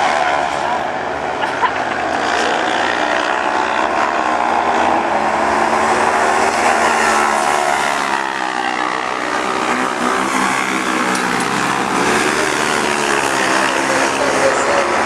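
Engines of several autocross sprint buggies racing on a dirt track at high revs, the pitch repeatedly rising and falling as they accelerate and lift off.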